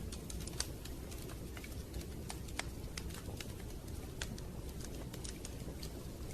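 Wood fire crackling in a fireplace: irregular sharp snaps and pops, several a second, over a steady low rushing noise.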